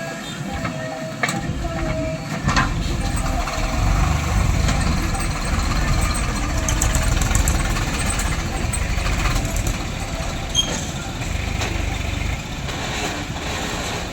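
Diesel engine of heavy earth-moving machinery running, growing louder about two and a half seconds in, with a couple of sharp clanks near the start.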